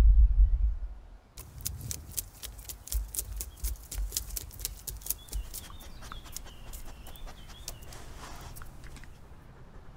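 Low rumble of a car in motion, heard from inside the cabin, cuts off about a second in. Then comes a dog's claws clicking on the wooden boards of a boardwalk as it trots, several quick sharp taps a second, thinning out after about five seconds.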